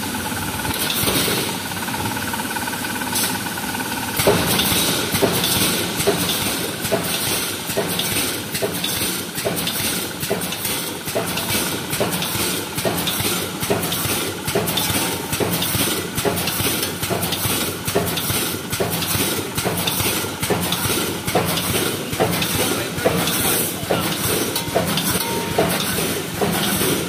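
Pneumatic wire mesh welding machine running: a steady rhythm of sharp clacks from the air-driven welding strokes over a continuous hiss and machine noise. The clacking starts about four seconds in.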